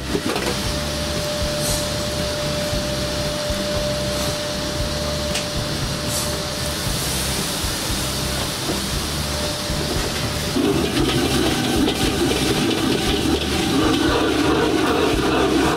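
Steady rushing roar of a restaurant wok burner with the noodles sizzling in the wok. A faint steady whistle runs under it for the first several seconds, and the noise grows louder about ten seconds in.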